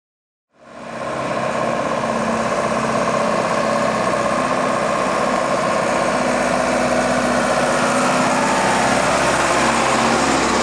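Diesel bus engine running steadily. The sound starts about half a second in and stays at an even level.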